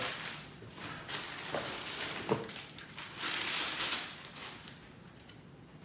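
Plastic wrapping and a plastic bag rustling and crinkling as bumper fog-light grilles are unwrapped, with two light knocks as a part is handled or set down; the crinkling is loudest a little past the middle.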